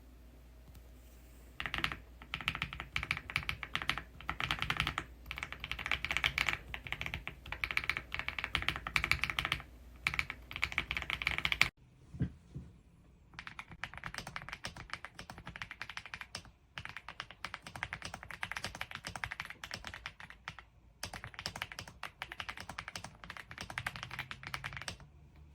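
Fast typing on an AULA F75 mechanical keyboard with pre-lubed Reaper switches: a dense run of key clicks that cuts off abruptly, then a second, quieter run of steady typing with a few short pauses.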